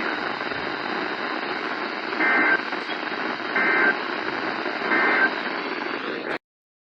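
Emergency Alert System end-of-message signal over radio hiss: three short data-tone bursts about a second and a half apart, marking the end of the weather alert. The audio then cuts off abruptly near the end.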